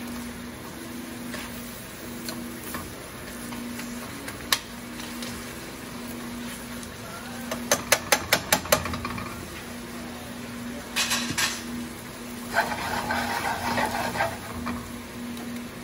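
Honey-citrus sauce bubbling as it reduces toward a glaze in a steel skillet on a gas range, over a steady low hum. A little past halfway come about seven quick metal clicks as tongs tap the pan, then more clatter and a few seconds of rough clattering and sloshing as the pan is shaken over the burner.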